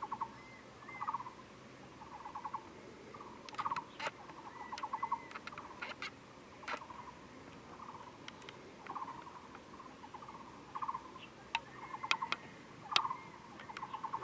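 Faint bird calls: short rattling chirps repeated roughly once a second, with a few higher rising notes and scattered sharp clicks.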